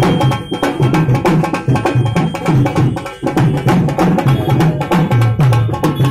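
Indian folk dance music with a fast, busy hand-drum rhythm of many quick strokes and deep low drum notes.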